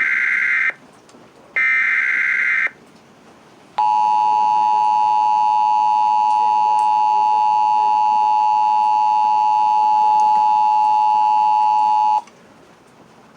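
Emergency Alert System header: harsh digital data bursts about a second long, repeated with short gaps, then a steady alert attention tone lasting about eight seconds that cuts off abruptly a second before the end.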